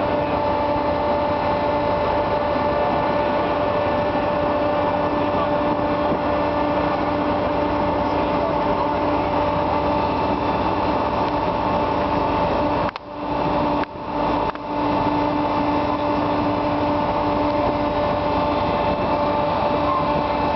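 Steady drone of a car ferry's machinery heard on deck: a constant hum with a couple of overtones over a noisy rush, briefly cutting out a few times about thirteen to fifteen seconds in.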